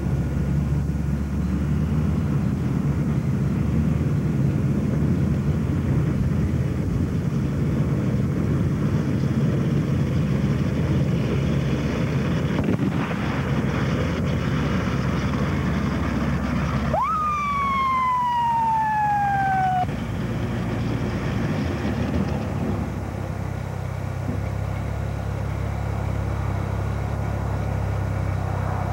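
Tracked T-16 carrier's engine running steadily as it drives. About 17 seconds in, a police car siren gives one short wail: a quick rise, then a slow fall over about three seconds before it stops.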